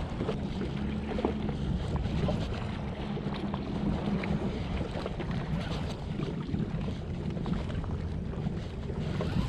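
Jet ski engine running at low revs, a steady low hum, with wind buffeting the microphone.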